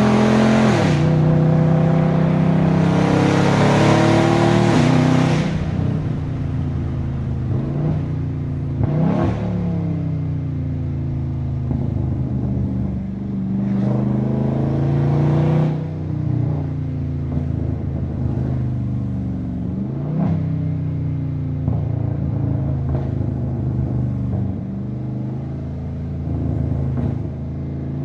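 Catless, tuned Dodge Scat Pack 392 Hemi V8 under hard acceleration: a loud wide-open-throttle pull for about five seconds, then the revs drop off. The engine then rises and falls through several shorter bursts of throttle, the strongest about halfway through.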